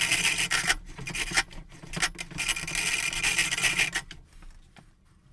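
A metal file scraping against the rim of a metal faceplate spinning on a foot-powered lathe, truing the rim round. The rasping comes in uneven bursts and stops about four seconds in.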